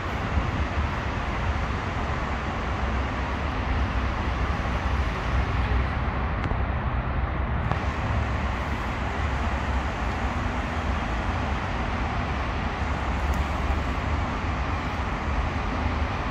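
Steady road-traffic noise, a continuous low rumble with no distinct events.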